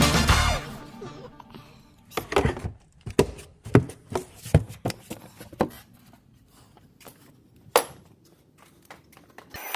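Background music fading out, then a quiet stretch with a handful of separate short knocks and clicks, one more near the end.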